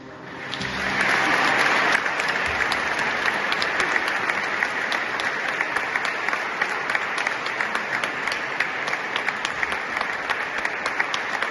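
Audience clapping after a choir's song, swelling over the first two seconds and then carrying on steadily. The choir's last held chord dies away at the very start.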